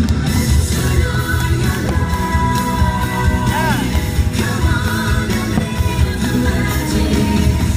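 Fireworks show soundtrack: loud recorded music with a singing voice.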